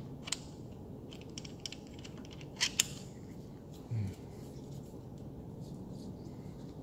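Light clicks and taps of a bow stabilizer's quick-disconnect fitting being handled and mounted on the bow's riser, with two sharper clicks about two and a half seconds in.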